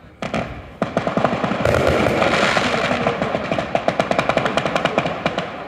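A ground-level firework battery of firecrackers going off in rapid succession: a dense run of sharp bangs, many a second, starting about a second in and thinning out near the end.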